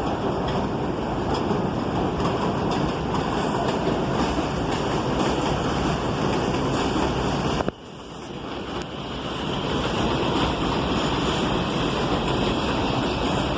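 New York City Subway 4 train running on the elevated track, a loud steady rumble and rattle of wheels on rail. About halfway through, the sound cuts out abruptly and builds back up over a couple of seconds.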